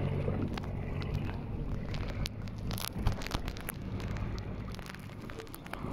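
Boat engine running with a steady low hum, mixed with wind on the microphone and scattered sharp clicks and crackles.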